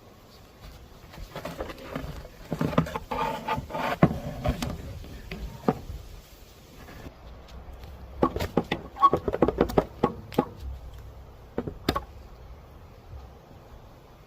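Wooden frame pieces knocking and clattering as they are handled and fitted together. The clicks come in two busy bursts, the first starting about a second and a half in and the second about eight seconds in, with a few single knocks after that.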